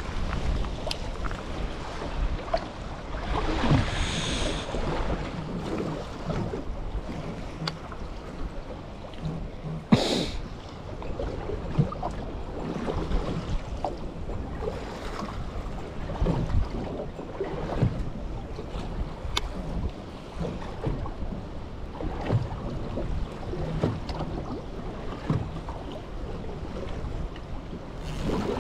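Wind buffeting the microphone and sea water washing around a small boat, with scattered light knocks and one sharp knock about ten seconds in.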